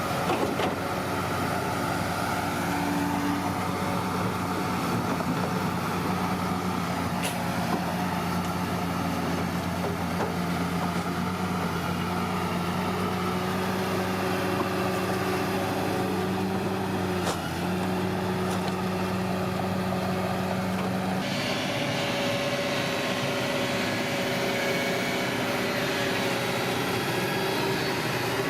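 Bulldozer's diesel engine running steadily at a constant speed. About three-quarters of the way through, the sound changes abruptly, the low hum dropping away and a higher, thinner engine sound taking over.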